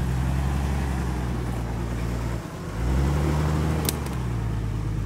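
Toyota Land Cruiser 80-series off-roader's engine running at low revs as it crawls past through mud. About halfway through the engine note drops away for a moment, then picks up again with a slight rise in revs. A single sharp click sounds about four seconds in.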